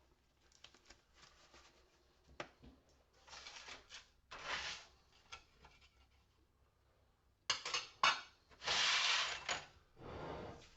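Porcelain lamp-holder shells clinking and scraping as they are handled on a workbench, with two sharp knocks about three-quarters of the way through followed by a scrape about a second long.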